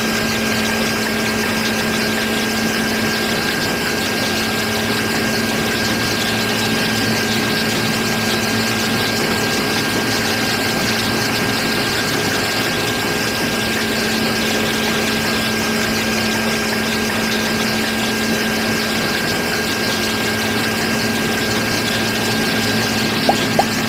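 Small electric motor running steadily, belt-driving a miniature grain mill that is grinding wheat into flour: an even hum with a thin high whine. A few quick, evenly spaced ticks come in near the end.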